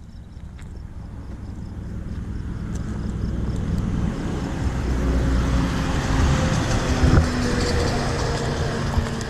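A motor vehicle on the road approaching and passing close by, its engine and tyre noise growing steadily louder over several seconds and loudest about seven seconds in. Insects chirp in a fast regular pattern at first, soon covered by the traffic.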